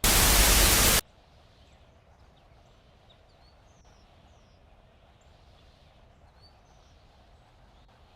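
A sudden loud blast of static noise lasting about a second, cutting off abruptly. After it comes a faint steady hiss with a few faint, short, high chirps.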